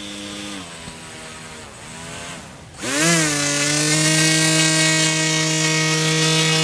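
HobbyKing Swamp Dawg RC airboat's 2300kv brushless outrunner motor and 5.5-inch propeller whining at part throttle. It eases off and wavers, dips almost to nothing, then is throttled up sharply about three seconds in to a loud, steady whine as the boat runs close by.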